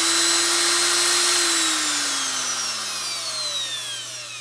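Metabo GE 710 Plus electric die grinder running free at speed setting 3 with a steady high whine, then switched off about a second and a half in and winding down, the whine falling in pitch and fading.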